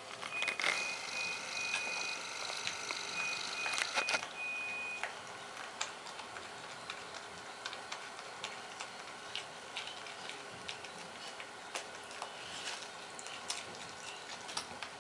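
Young North American porcupine chewing raw vegetables and leafy greens: quick, irregular crunching clicks. During the first five seconds a faint, broken high-pitched beep runs along with it, then stops.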